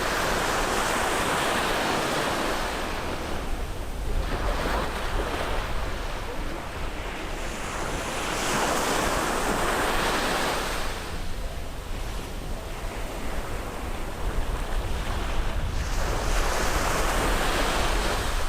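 Sea waves breaking and washing up on a beach: the surf swells and fades in repeated surges, about four of them, a few seconds apart.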